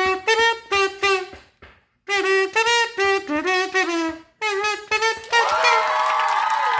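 A kazoo built into a toy Popeye pipe, hummed into to play a short tune of buzzing notes with a brief pause partway. About five seconds in, the kazoo stops and a steady wash of music and crowd noise takes over.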